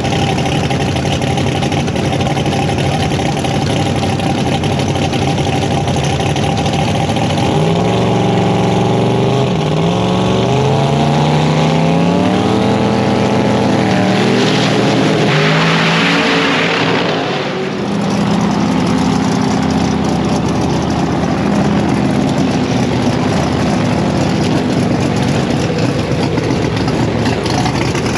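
Pro mod drag race car's engine running at the start line, revving up and down several times in a row about a third of the way in. Near the middle comes a loud hissing rush lasting about three seconds, then the engine settles back to a steady run.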